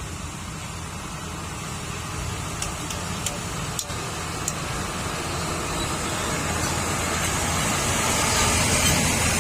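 Heavy truck's diesel engine running, growing steadily louder as it comes closer, with a few short clicks near the middle.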